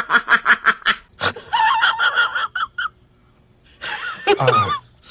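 A person laughing in quick, even bursts, about six a second, which stops about a second in. Shorter pitched voice-like sounds follow after it.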